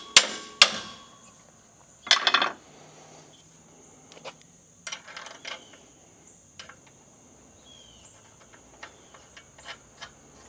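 Two sharp ringing hammer blows on steel near the start, driving a bolt into a suspension mount. A short metallic clatter about 2 s in is followed by scattered light clinks of tools and parts. A steady high insect trill runs underneath.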